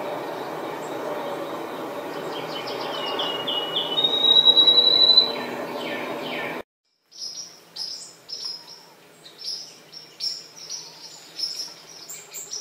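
Field sparrow singing: a few whistled notes that speed up into a fast trill, over a steady low background rumble. After a brief cut, a series of short high chirps repeats in quick bursts.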